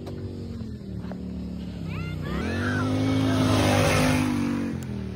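ATV engine running at a low steady speed, then revving up about two seconds in, holding the higher revs for about two seconds and dropping back near the end as the quad gets going.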